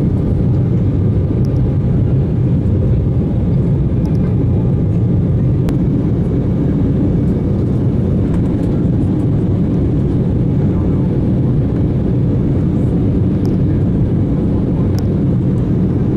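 Steady low rumble of a jet airliner's engines and rushing airflow, heard inside the passenger cabin in flight, with a few faint clicks.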